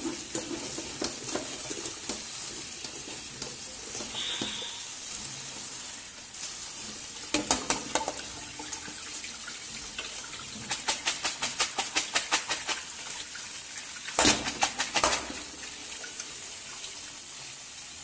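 Tap water running into an aluminium colander of sliced bitter gourd while a hand rubs and turns the wet pieces. Several runs of rapid clattering clicks, each lasting one to two seconds, come through the water.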